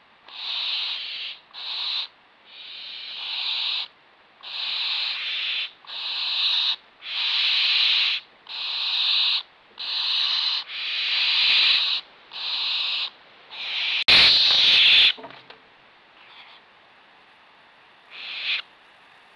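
Young barn owls giving their begging calls: a run of drawn-out hissing snores, about one a second. The run ends in a louder, harsher burst about fifteen seconds in, and one more short hiss comes near the end.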